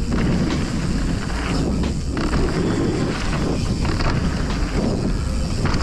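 Wind buffeting the microphone, with the rumble of mountain bike tyres rolling down a dirt jump trail.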